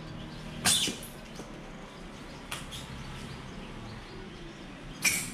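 A plastic tarp being dragged and flung over a stack of styrofoam boxes on a truck bed: two short, loud scraping rustles about four seconds apart, with a fainter one between, over a steady low hum.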